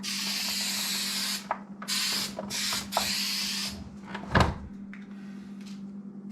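Aerosol can of spray contact adhesive hissing in three bursts, a long one, a short one, then another long one, stopping about four seconds in. A single sharp knock follows shortly after.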